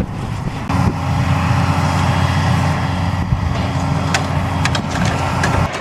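Excavator diesel engine running steadily with a low, even hum, starting abruptly about a second in and cutting off abruptly near the end.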